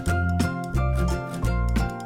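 Background music with a steady, bouncy beat, heavy bass notes pulsing about twice a second under sustained melody notes.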